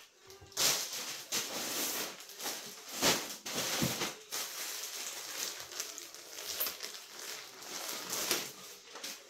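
Plastic packaging bags crinkling and rustling as they are handled and a plastic pouch is pulled open: irregular crackling that comes and goes, loudest about half a second in and about three seconds in.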